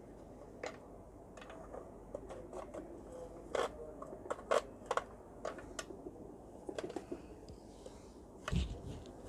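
Irregular clicks and scrapes of a tool working at the deep-set Phillips screws of a juice blender's housing, with one heavier thud near the end.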